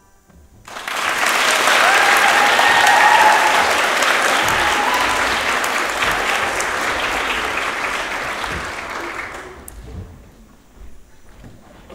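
Audience applauding: the clapping starts about a second in, holds steady, then dies away near the end.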